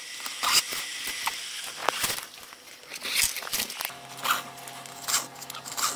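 Hand-stitching leather: thread being pulled through the stitching holes and handled, giving short scraping and rustling strokes. A faint steady hum comes in about four seconds in.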